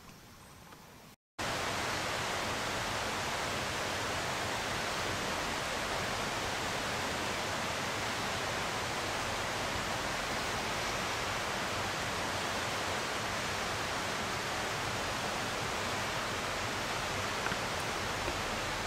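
A steady, even rushing hiss that sets in abruptly about a second in, after a brief silent gap, and holds unchanged.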